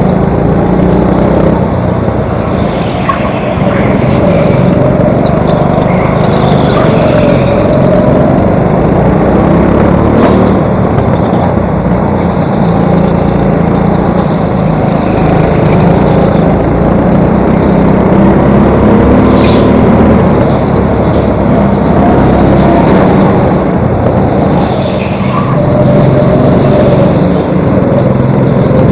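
Go-kart engine running hard, heard from a camera mounted on the kart, its pitch rising and falling with the throttle through the corners. There are a couple of short knocks along the way, and other karts' engines are heard close by.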